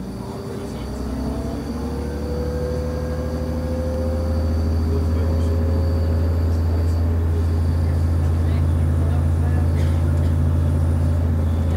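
Diesel engine of a class 628.4 railcar, an MTU 12V183TD13 twelve-cylinder, running, heard from on board the train: a deep steady drone that grows louder over the first few seconds and then holds, with a faint high whine above it.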